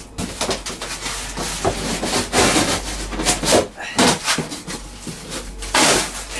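Cardboard shipping box being cut and pulled open: an irregular run of scraping and rustling strokes with a few short knocks.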